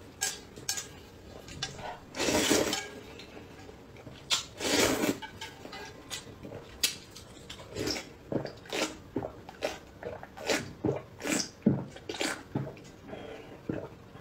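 Close-miked eating sounds from a bowl of soup: two long slurps in the first five seconds, then a run of swallowing gulps about two a second as the broth is drunk straight from the metal bowl, with small clicks of chopsticks and bowl.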